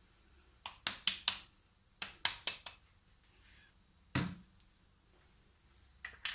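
Sugar being tipped into a mixing bowl of eggs, the measuring glass knocked against the bowl to empty it: sharp clinks in quick groups of about four, one heavier knock about four seconds in, and a few more near the end.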